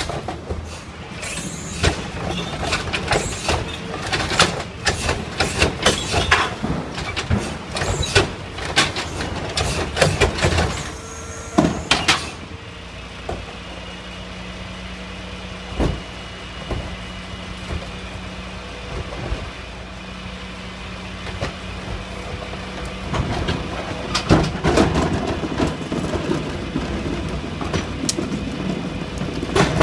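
Heil rear-loader garbage truck on a Peterbilt 310 with its diesel engine running while blue recycling carts are tipped into the hopper. For about the first twelve seconds recyclables and the plastic cart clatter and bang, in many sharp knocks. After that comes a steadier engine hum with one knock, then dense clatter and crunching again for the last several seconds.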